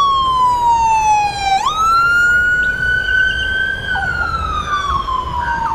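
Toy police car's electronic siren wailing: one slow, falling wail that jumps back up about a second and a half in, then rises a little and slowly falls again.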